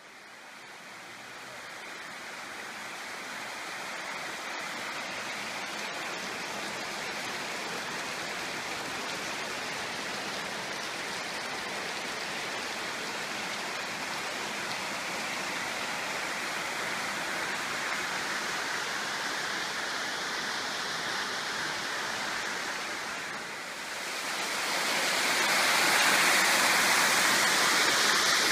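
Waterfall and creek water rushing over rock, a steady rush that fades in at the start and grows louder for the last few seconds.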